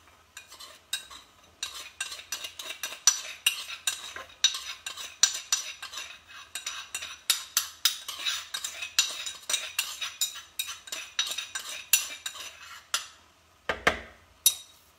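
Rapid, irregular sharp clicking and crunching, about three or four loud clicks a second, as walnuts are worked into a glass mixing bowl. The clicking stops about two seconds before the end, followed by two single knocks.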